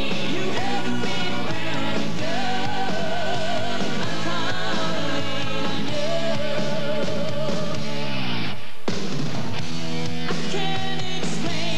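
Rock song with a singing voice and band, with a brief break in the music a little before nine seconds in.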